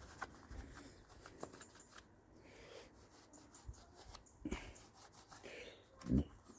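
Faint clicks and rubbing from hands opening and cleaning the air filter box of a STIHL FS65-4 four-stroke strimmer, with a short low thump near the end.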